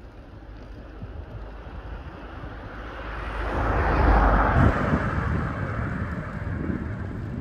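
A car passing on the road alongside: its noise swells to a peak about four seconds in, then fades as it drives away. Steady low wind rumble on the microphone runs underneath.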